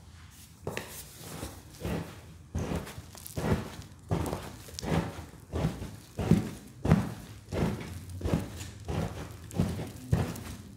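Cups being pressed and pounded down into a bowl of Ajax cleanser and baking soda powder: a steady run of dull, soft thuds, close to two a second, starting under a second in.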